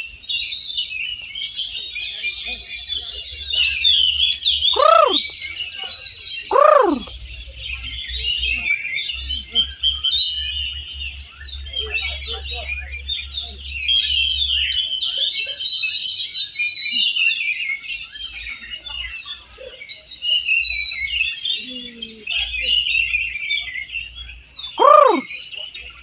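Many oriental magpie-robins (kacer) singing at once in a songbird contest, a dense, continuous chatter of varied whistles and chirps. Three loud falling whistles cut through it, about five and seven seconds in and again near the end.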